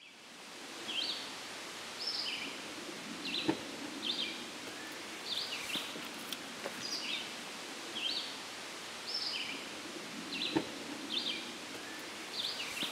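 Outdoor woodland ambience: small birds chirping short, sharp, high calls about once a second over a steady background hiss.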